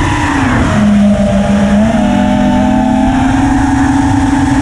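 A 5-inch FPV racing quadcopter's four brushless motors (iFlight Xing 2207 1800KV) and propellers whining at flying speed. The motors are heard from the onboard camera together with the rush of air. The pitch drops about half a second in, then climbs a little and holds steady as the throttle changes.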